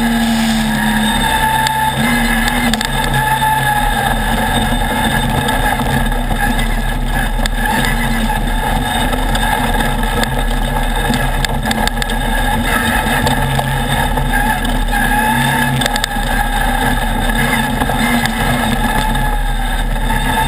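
Off-road race buggy's engine running hard and steady at speed, heard from a camera mounted on the buggy, with a few short knocks from the rough dirt track.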